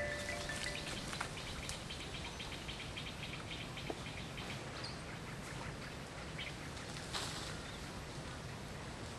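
Outdoor ambience of forest birds: a rapid series of short, high chirps, about seven a second, runs for a few seconds, over a steady low background rumble with a few faint clicks.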